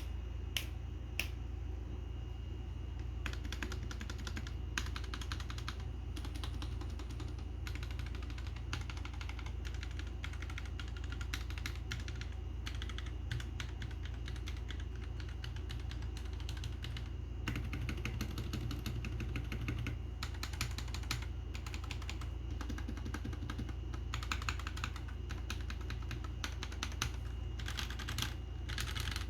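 Royal Kludge RK G68 mechanical keyboard with red linear switches being typed on: a few single key presses at first, then fast runs of keystrokes broken by short pauses, over a steady low hum.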